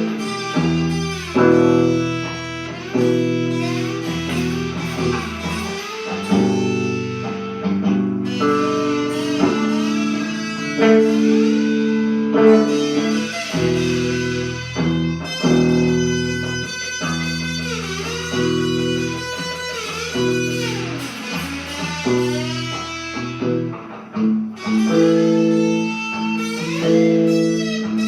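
Blues guitar playing, with bending notes over a bass line.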